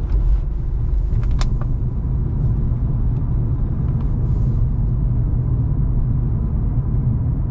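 Steady low cabin rumble of a 2006 Infiniti M35 driving on the road, with a few sharp clicks about a second and a half in.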